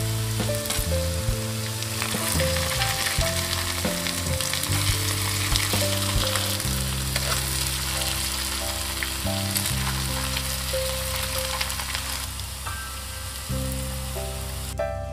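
Hot oil sizzling steadily around balls of grated potato frying in a pan, over background music of held low notes.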